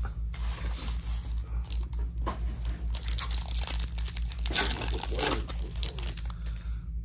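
Foil wrapper of a Topps Chrome basketball card pack being torn open and crinkled by hand, with irregular crackling and rustling as the cards are pulled out.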